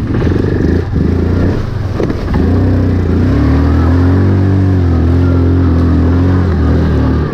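2018 Yamaha Kodiak 450 ATV's single-cylinder engine revving under load as it pulls through a muddy, water-filled rut. The engine note builds about two seconds in and then holds steady and loud.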